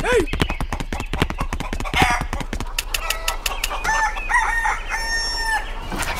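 Chickens clucking and a rooster crowing, with a long held crow starting about four seconds in. A run of quick clicks fills the first half.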